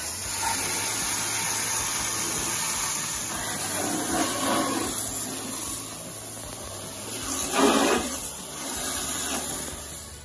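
Pressure washer jet hissing and splattering against a pickup's tyre and wheel well, with louder splashing surges about four seconds in and just before eight seconds as the spray hits closer surfaces.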